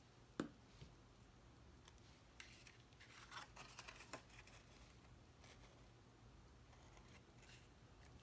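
Faint rustling and scraping of cut cardstock pieces being handled and pressed into place, with a sharp tap about half a second in and a cluster of light rustles around three to four seconds in.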